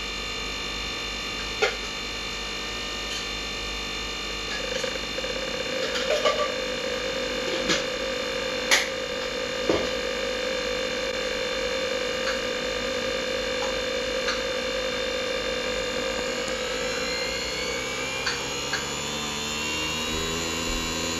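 Nespresso capsule coffee machine brewing into a glass: a steady hum with a high whine made of several tones, with a few sharp ticks scattered through. Over the last few seconds a set of its tones rises in pitch.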